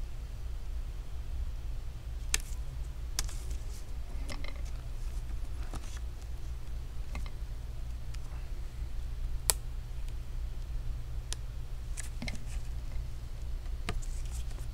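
Scattered light clicks and taps of gloved fingers handling a laptop's LCD panel and plastic lid, about eight in all, the sharpest about nine and a half seconds in. A steady low hum runs underneath.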